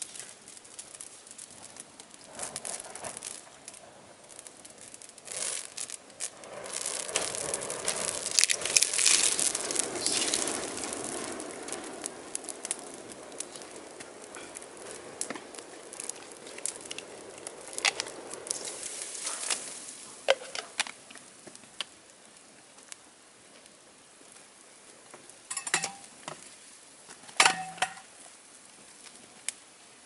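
Wood fire of dry branches crackling and popping, swelling to a dense, loud crackle a few seconds in before settling back to scattered pops. Near the end come two sharp knocks, each with a brief ringing tone.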